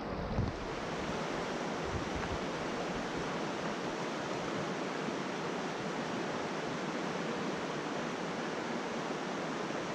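Steady rushing of a shallow river running over rocks and riffles, with a brief low thump about half a second in.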